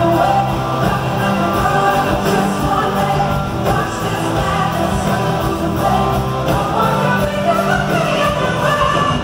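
A live pop-rock band performance with a woman singing lead over guitars and drums, recorded from the audience in a large arena hall.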